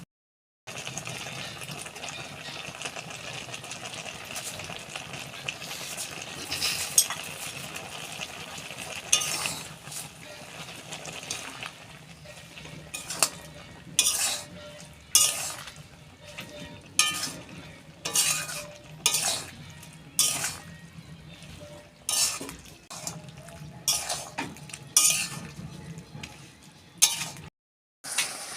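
A utensil stirring and scraping against a cooking pan full of dried jujubes in date-palm jaggery, over a steady low hiss. From about halfway through, the scraping comes as regular strokes, roughly one a second.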